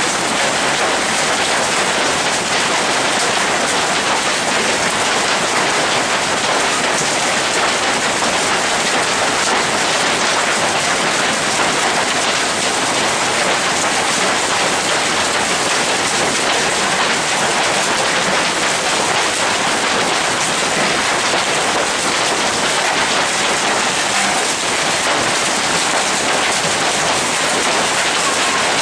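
Hailstorm: hail and rain pelting down steadily, a loud, dense, unbroken hiss of impacts with no letup.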